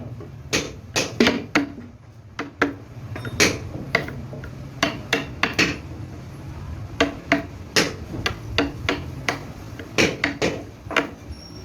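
Irregular sharp knocks and clinks of tools striking hard material, some with a short ring, about one to two a second, over a steady low hum.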